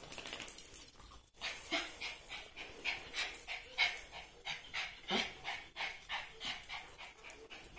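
A dog panting, about three quick breaths a second.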